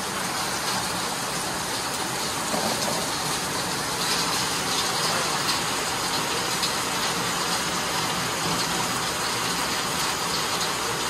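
Rain falling steadily, an even hiss that does not change.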